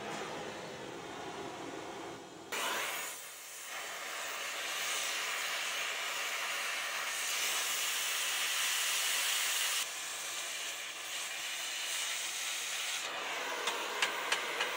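A steady hiss that grows and eases in strength a few times, with a few sharp ticks near the end.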